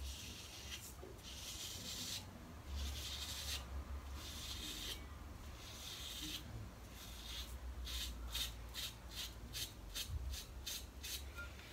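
Gem Micromatic single-edge safety razor scraping through lather and stubble on the scalp, faint, in a series of strokes: a few longer strokes at first, then quicker short strokes, several a second, over the last few seconds.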